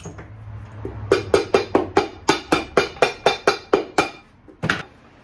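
Cobbler's hammer tapping a boot held on a last: a quick, even run of about fourteen sharp knocks, roughly four a second, then one more knock after a short pause.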